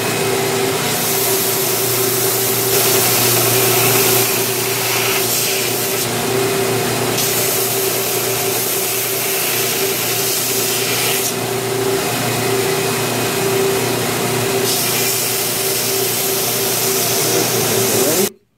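Belt grinder running, grinding a knife handle's wooden scales, steel tang and pins down to shape against the belt. The motor keeps a steady hum and tone, and the grinding noise grows and eases several times as the work is pressed on and lifted off. The sound cuts off suddenly near the end.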